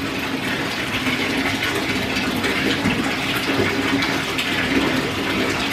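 Bathtub tap running steadily into a half-filled tub of water.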